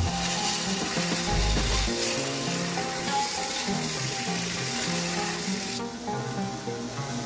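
Belt grinder grinding a forged canister Damascus steel knife blank: a steady, gritty hiss of steel on the abrasive belt that stops about six seconds in as the blade is lifted off. Background music plays along with it.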